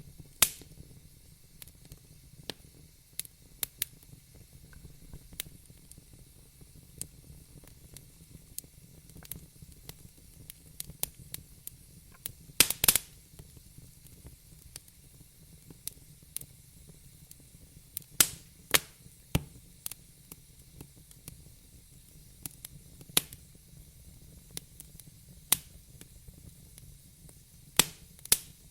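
Campfire crackling: irregular sharp pops and snaps over a soft low rumble of the flames, with a cluster of loud pops about halfway through.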